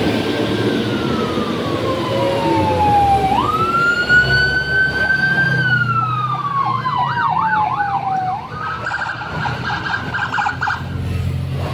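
Electronic siren sounding in slow wails that fall, jump up and fall again, then switching to a quick warble for about two seconds and a pulsing tone near the end, over a low rumble.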